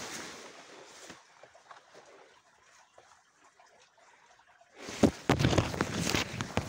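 Large elephant-ear leaves and stalks rustling and brushing against the phone as someone pushes through dense plants. It goes quiet with only faint crackles for a few seconds, then a loud crackling rustle with sharp knocks starts about five seconds in.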